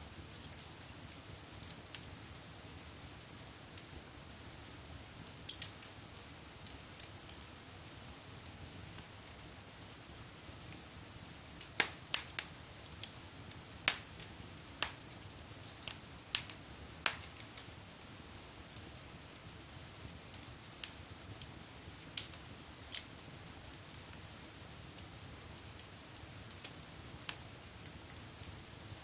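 Wood fire burning in a fireplace: irregular sharp crackles and pops over a soft steady hiss, with a run of louder pops near the middle.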